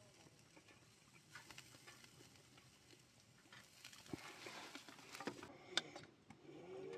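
Near silence broken by faint, scattered small clicks and light taps, a little busier in the second half.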